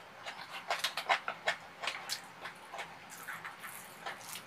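Close-miked eating sounds of tuna kimchi fried rice: a quick, irregular run of short wet chewing clicks and lip smacks, with a metal spoon scraping and scooping rice in the pan near the end.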